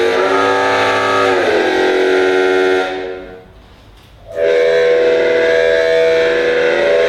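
Trombone playing long held notes, rich and horn-like. The first note bends down in pitch about a second and a half in and breaks off near three seconds. A new long note starts just after four seconds.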